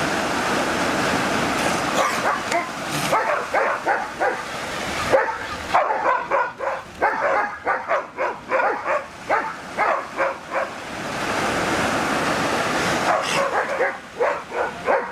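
A dog and sea lions barking back and forth at each other in quick runs of short barks, with surf washing on the beach between the runs.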